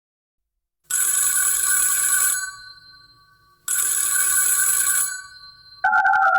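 An AI-generated telephone ringing twice, each ring lasting about a second and a half, with a pause between them. Near the end, a different electronic tone begins that steps up and down in pitch like a melody.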